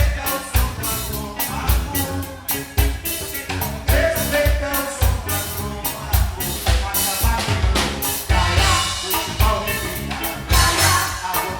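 Live band music: a steady drum beat with strong low hits under a sung melody.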